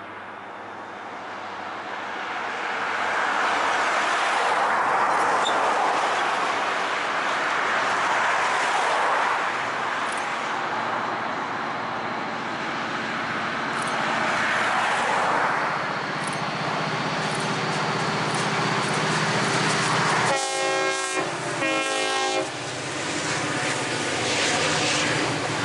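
Freight train led by two EMD diesel locomotives approaching and passing: a rush of rail and engine noise builds over the first few seconds, then two short horn blasts sound about twenty seconds in, one right after the other, with the diesels' steady engine drone as the locomotives go by.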